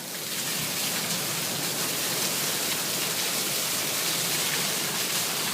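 Heavy rain pouring down steadily in a storm; it starts abruptly.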